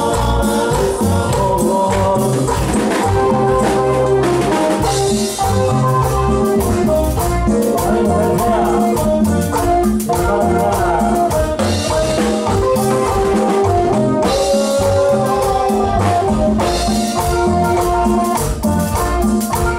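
Live cumbia band playing an instrumental passage: an electronic keyboard melody over drum kit and hand percussion, with a steady dance beat.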